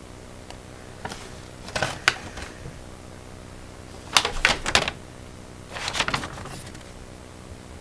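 Paper and a cardboard box being handled: short bursts of rustling and crisp clicks, in four brief clusters with quiet gaps between, the loudest a little after the middle.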